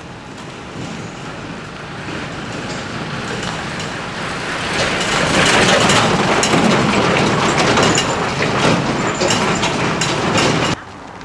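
Diesel dump truck driving past on a rough road: its engine and tyres grow steadily louder, are loudest in the middle, and come with many knocks and rattles. The sound cuts off suddenly near the end.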